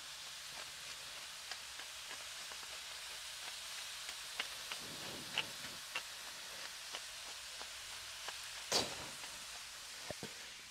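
Sliced bell peppers and onions sizzling in beef tallow in a cast-iron skillet over charcoal: a steady frying hiss with scattered pops and crackles. There is one louder sharp click near the end.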